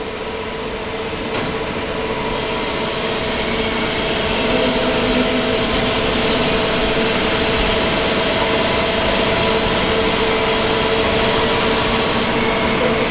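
Powered transport cart carrying a train wheelset, driving along to the wheel-extraction position: a steady mechanical hum with a couple of held tones, growing louder over the first few seconds and then running evenly.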